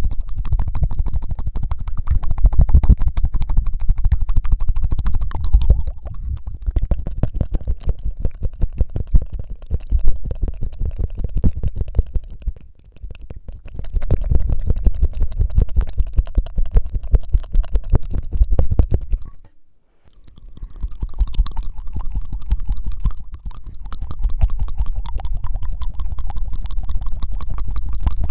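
Rapid tongue-fluttering mouth sounds made close to the microphone: a fast, continuous rattle of tiny clicks, in long runs broken by two brief pauses, one near the middle and one about two-thirds of the way through.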